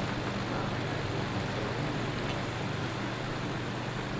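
2004 General Electric box fan (model 106620) running on low speed with both grills off: a steady motor hum under the even rush of air from the bare blades.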